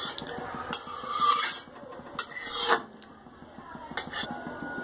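Steel spatula scraping and knocking against the inside of a metal kadhai in several separate strokes as a little oil is spread around it.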